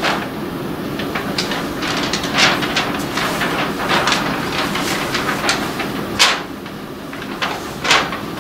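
A stiff paper document rustling and crackling as it is folded and handled, with scattered sharp clicks over a steady low room noise; a few louder clicks come near the end as the paper is raised.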